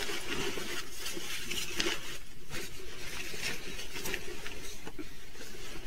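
Rustling and soft knocking of a quilted fabric duffle bag being handled and turned over, its straps and fabric rubbing in irregular short scrapes and taps.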